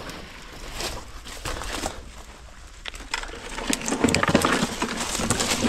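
Heavy mud-filled metal box being dragged up a concrete bank on a magnet-fishing rope, scraping and knocking in irregular bursts that grow busier and louder in the second half.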